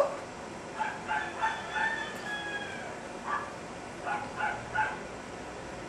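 An animal's calls in the background: a few short high calls, one longer drawn-out falling call about a second and a half in, and a quick run of short calls near the end.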